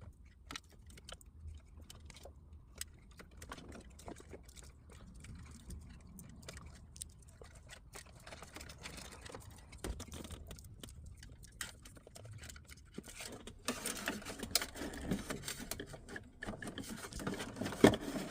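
Faint scattered clicks and rustling of hands handling tools and wiring, busier in the last few seconds, with one sharp click near the end.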